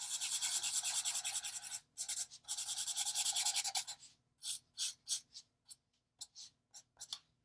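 Chisel tip of an Ohuhu alcohol marker scratching across paper in rapid back-and-forth colouring strokes: two quick runs, broken by a short pause, in the first four seconds, then a few slower, separate strokes.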